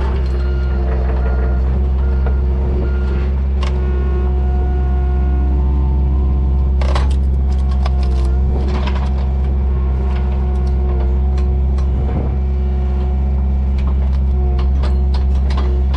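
John Deere excavator's diesel engine running steadily, with an alarm beeping at an even pace for the first few seconds. Sharp cracks and snaps of firewood splitting come now and then, most often near the end.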